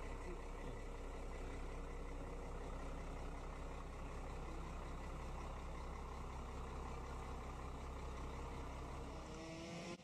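An engine idling steadily, cutting off suddenly near the end.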